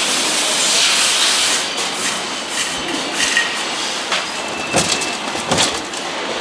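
Engine assembly line noise: a loud hiss for the first second or so, then a background of machinery with a few sharp knocks, the loudest about five seconds in.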